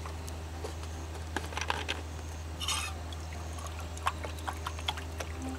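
Water poured from a plastic water bottle into a small cooking pot on a camping stove, with light clicks and handling of the bottle, to heat water for tea.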